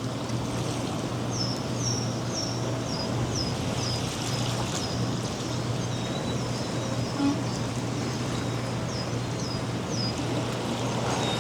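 Beach surf washing steadily, with a small bird calling a run of short, high chirps that fall in pitch, from about a second in to halfway through and again for a few calls later on.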